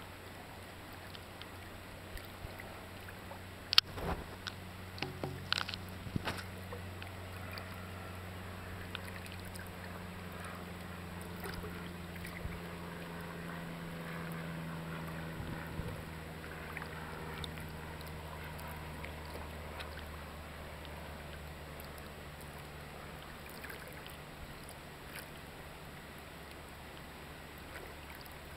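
Water lapping against the hull of a small boat, with a few sharp knocks about four to six seconds in, over a low steady hum.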